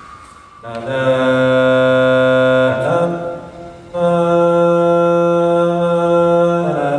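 Two long, steady, chant-like vocal tones, a man's voice held at one pitch each time. The second tone is a little higher and follows a short break about three seconds in.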